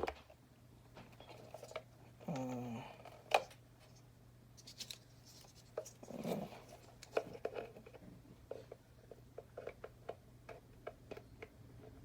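Small plastic miniature furniture parts clicking and tapping as a rod is slid into the grooves of a tiny side table, with a quicker run of small clicks in the second half.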